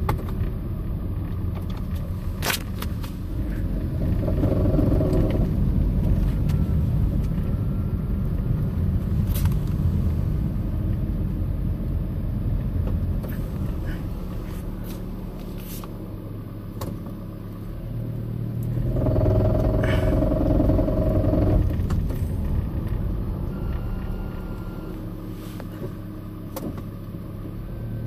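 A 2010 Toyota Prius hybrid driving at low speed: a steady low road and drivetrain rumble, with the 1.8-litre four-cylinder petrol engine note swelling twice, about four seconds in and again about two-thirds through. Scattered sharp clicks sound over it.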